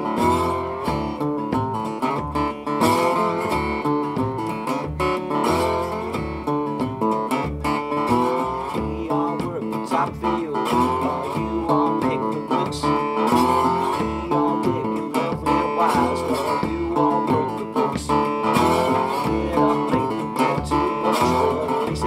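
Icarus tricone resonator guitar played with a slide, its notes gliding up and down, with a double bass plucked along underneath.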